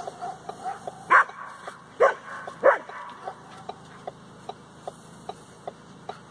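Small dog barking three loud, sharp barks in quick succession about one to three seconds in, as it harasses a moose. Under it, a faint regular ticking runs at about two or three a second.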